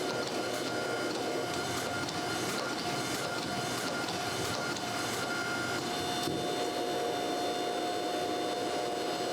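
Steady whirring machine noise with a few held tones and faint regular ticking, like a workshop motor running.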